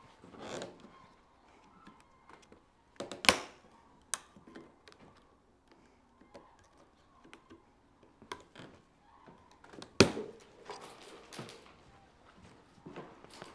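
Packing straps being cut with side cutters: two sharp snaps, a little after three seconds and at about ten seconds, with lighter clicks and the rustle of packaging between.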